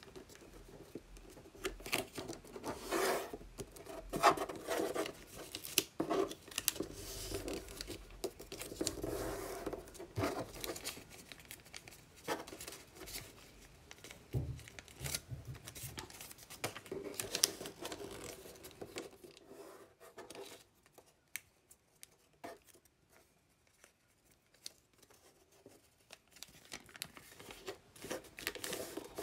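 Magazine paper being folded and creased by hand: irregular rustling and crinkling with sharp clicks as folds are pressed. About two-thirds of the way in it drops to a quieter stretch of scattered soft ticks, then the rustling picks up again near the end.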